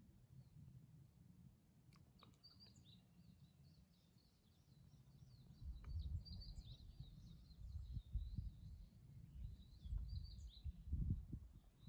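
Small birds chirping and twittering repeatedly in the background, with gusts of wind buffeting the microphone as a low rumble from about halfway, strongest near the end.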